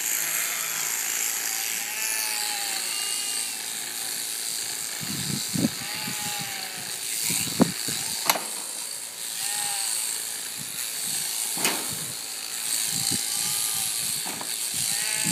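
Electric sheep shears running steadily, with scattered sharp clicks and knocks. A few short sheep bleats come through over the shears.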